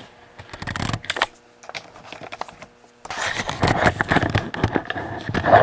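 Irregular scraping, clicking and clattering handling sounds, sparse at first and busier over the last couple of seconds, over a faint steady hum.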